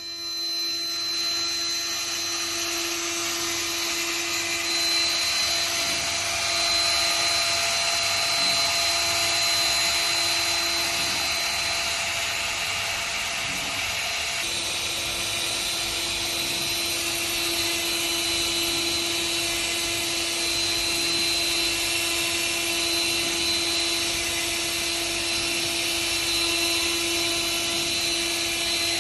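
CNC router spindle running through a machining job: a steady whine over a continuous cutting hiss. It starts right at the beginning and changes slightly about halfway through.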